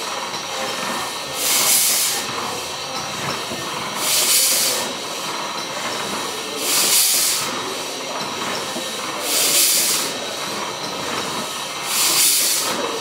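Single-cylinder Corliss engine by Douglas & Grant turning slowly, with a steady mechanical running sound. A loud hiss comes once each stroke cycle, about every two and a half seconds, five times.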